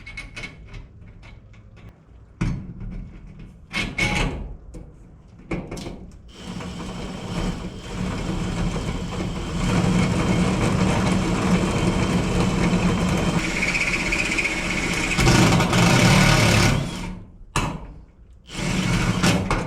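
Power drill running under load in spells: a short run about two seconds in, a long steady run of about ten seconds from about six seconds in, and a last short burst near the end.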